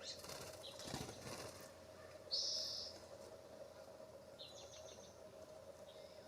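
Small birds at a bird bath: a brief flutter of wing flaps in the first second or so, then a few short, harsh, high-pitched calls, the loudest about two seconds in.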